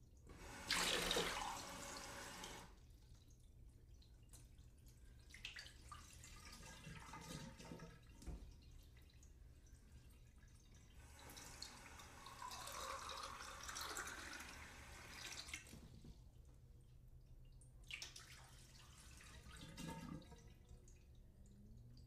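Water from a sink tap running into a drinking glass in several runs: a short strong run about a second in, then a longer fill whose pitch rises as the glass fills. Drips and small splashes fall between the runs.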